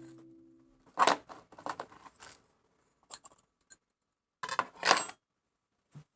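Small hard objects being handled while succulents are repotted: pots, soil and tools give several short bursts of clicking, scraping and rustling in three clusters. A musical tone fades out in the first second.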